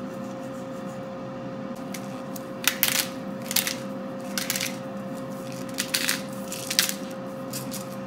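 Pepper mill grinding black pepper onto raw lamb chops in about nine short, scratchy twists, starting a couple of seconds in. Under it runs the steady hum of the air fryer, working at 200 degrees.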